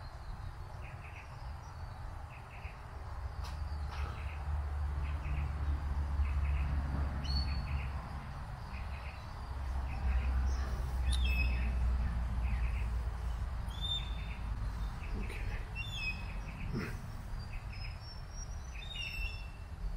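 Birds calling: short whistled notes several times over a steady double chirp repeated about every two-thirds of a second, with a low rumble that swells and fades.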